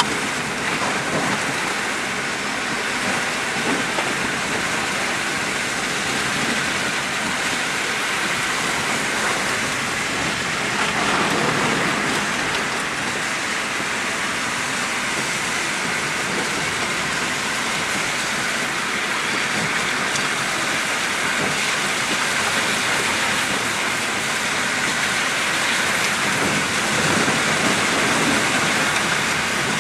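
Steady hiss of rain on a moving car and its tyres on a wet, hail-covered road, heard from inside the car.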